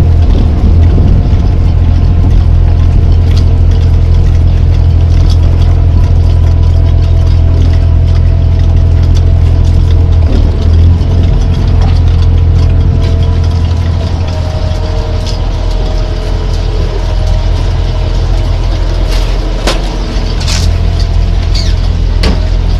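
Steady, loud drone of a squid-jigging boat's engine and deck machinery, with a deep hum under it. A few sharp clicks come about twenty seconds in.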